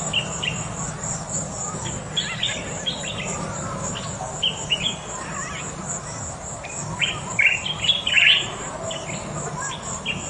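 Riverside wildlife ambience: a steady, pulsing insect trill runs high above short, scattered bird chirps, which come thickest and loudest about seven to eight and a half seconds in.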